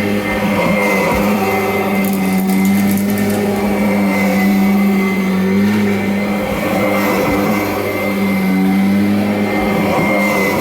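Kirby Avalir upright vacuum running steadily while vacuuming, a loud motor-and-fan hum with a thin high whine above it. The hum's pitch sags slightly a couple of times, about five seconds in and again near eight seconds.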